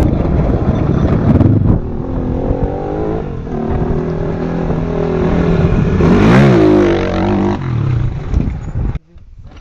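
Motorcycle engine running hard with revs rising and falling, including a sharp rev up and back down about six seconds in; the sound cuts off suddenly near the end.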